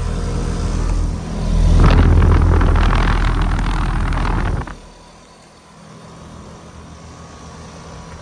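2000s Bryant heat pump outdoor unit running: a steady low hum, with a loud rushing noise over it for about three seconds. Everything loud cuts off suddenly about four and a half seconds in, leaving only a faint low hum.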